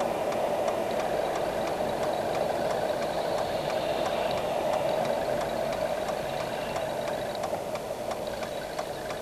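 Car engine and tyre noise heard inside the cabin as the car slows down, with the turn-signal indicator ticking evenly throughout.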